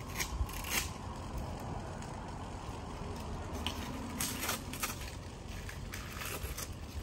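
Long strips of masking tape being peeled up off the pavement after spray-painting parking lines, crackling and ripping in short spells, most around four to five seconds in, over a low steady rumble.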